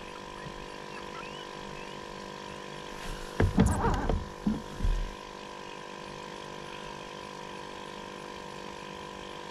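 A steady electric hum with several fixed tones, broken about three seconds in by a couple of seconds of muffled bumps and knocks.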